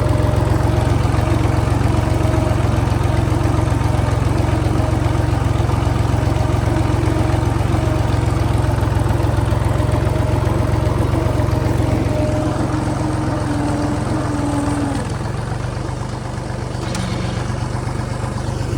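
Tractor engine running steadily with a deep hum; about 15 s in its note changes and it briefly gets a little quieter.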